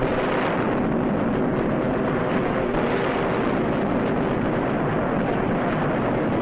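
Old film soundtrack of a Stuka dive-bomber attack on a destroyer: a steady, dense roar of aircraft engines and explosions, with no single blast standing out.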